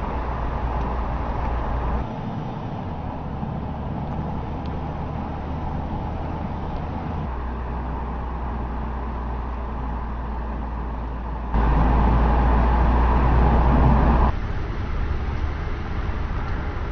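Mercedes-Benz C-Class sedan driving, a steady engine and road noise that jumps to a different level at each edit, loudest for about three seconds past the middle.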